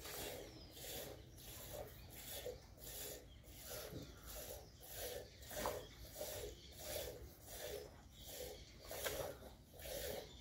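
A cow being milked by hand into a steel pot while her calf suckles at the udder: rhythmic squirting and sucking, about two strokes a second, with a hiss on each stroke.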